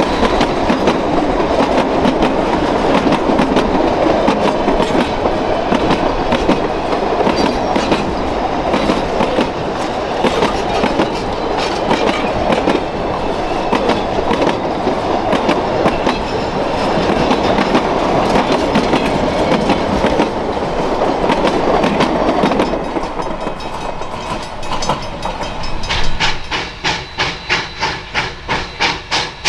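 Narrow-gauge steam train, former Alaska Railroad 152 and its coaches, running past with many clicks from the wheels on the rails. Near the end the sound turns into an even beat of about three a second.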